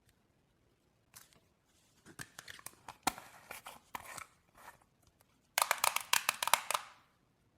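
Slime being squished and pressed by hand, crackling with small clicks and pops. It starts about a second in and ends with a loud run of rapid clicks, about eight a second.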